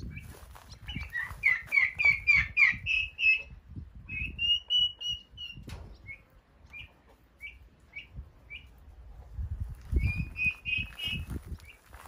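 Young poults peeping in high calls: a run of quick chirps, one longer held call, then single peeps about every half second, and another quick cluster near the end. Wind rumbles low on the microphone underneath.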